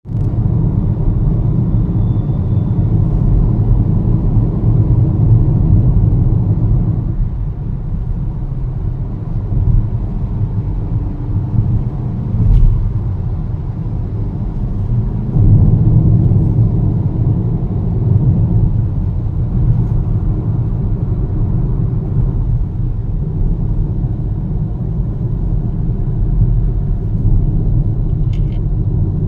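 Motorcycle engine and exhaust running with a steady low rumble, swelling louder twice.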